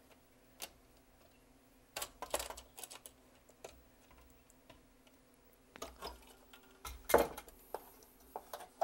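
Scattered clicks and knocks of plastic and metal parts being handled and pried while an internal piece is worked free of a VCR/DVD combo unit's chassis, with a louder clatter about seven seconds in.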